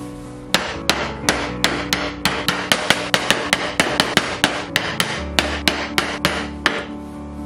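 Wooden mallet tapping on the wooden handle of an awl, driving its point into a melamine-faced chipboard strip: a quick, even run of light knocks, several a second, starting about half a second in.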